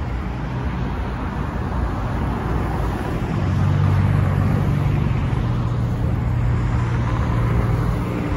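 Road traffic on a multi-lane street: cars passing steadily, with one vehicle's engine hum growing louder a few seconds in as it passes close.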